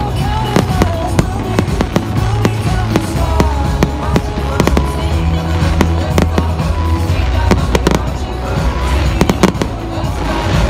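Fireworks going off: a rapid, irregular run of bangs and crackling bursts, with a dense cluster of bangs about nine seconds in. Music with a steady bass line plays underneath.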